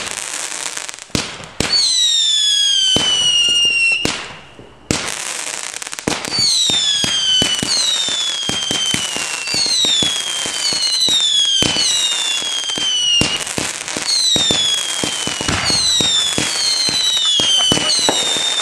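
Consumer fireworks going off: a run of whistles, each falling in pitch over a second or so and overlapping one another, mixed with rapid bangs and crackling, with a brief lull about four seconds in.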